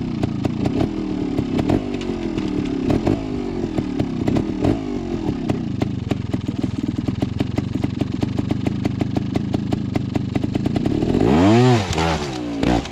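Beta trials motorcycle engine at low revs, blipped repeatedly with each blip sagging back, then holding a steady idle with a rapid ticking. About eleven seconds in, one sharp rev rises and falls back; it is the loudest moment.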